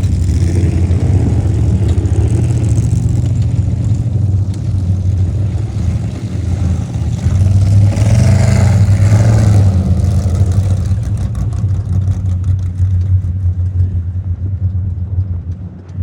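Off-road race vehicle engines running loudly. One vehicle grows louder and fuller about seven seconds in, is loudest around eight to ten seconds, then fades.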